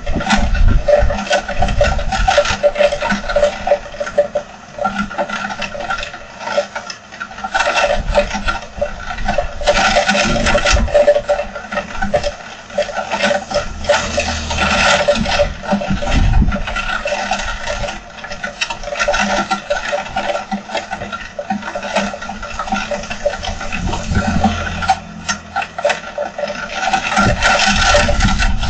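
Heavy rain pelting down, a dense rapid pattering, with gusts of wind rumbling on the microphone in uneven surges.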